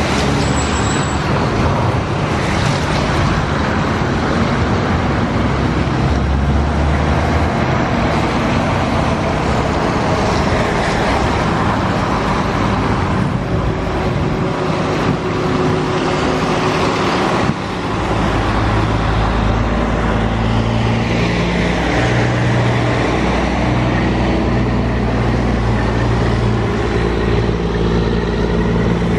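Boeing 787 jet engines running at taxi power as the airliner rolls by, a steady whine over dense, even noise. The deep rumble grows heavier about two-thirds of the way in.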